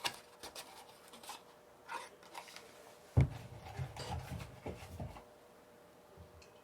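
Handling of the donut packaging: scattered light clicks and rustles, with a sharp thump about three seconds in followed by about two seconds of low rumbling.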